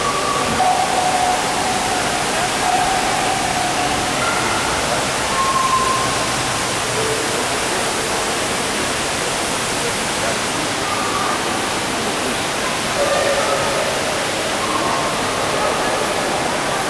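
Steady rushing of a large indoor waterfall, with faint voices of other people in the background.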